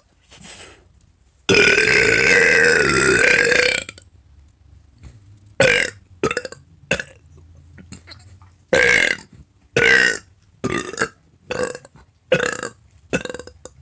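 A person burping: one long, loud burp lasting about two seconds, then a run of about ten short burps in quick succession.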